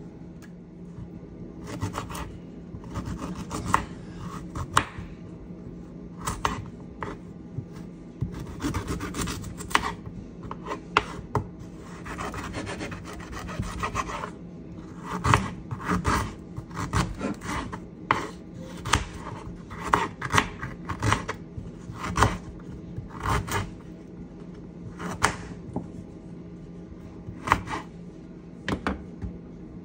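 Fresh ginger root being scraped with a vegetable peeler, then chopped with a knife on a bamboo cutting board; about halfway through the scraping gives way to irregular sharp knocks of the blade striking the wood. A steady low hum sits underneath.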